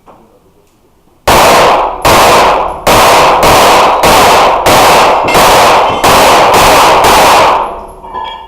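Rapid pistol fire from a competitor shooting an IPSC stage: about ten loud shots over some six seconds, in quick strings with short pauses. Each shot rings on in the echo of an indoor range.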